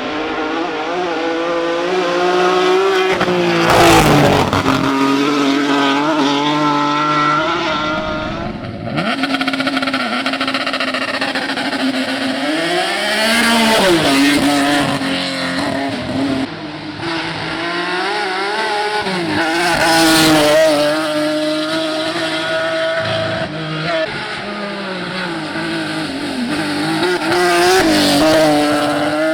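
BMW E46 Compact race car driven hard, its engine revving up and falling back again and again through gear changes and corners, loud. The revs drop sharply about nine seconds in and again past the middle, with a few short sharp cracks along the way.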